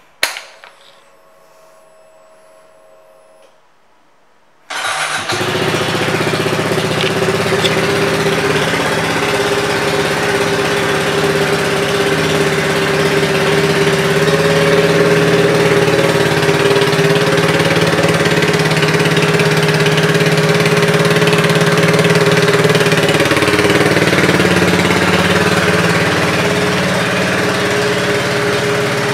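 2022 Kawasaki Z125 Pro's small single-cylinder engine, breathing through an aftermarket exhaust, starting about five seconds in after a click and a short faint hum, then idling steadily.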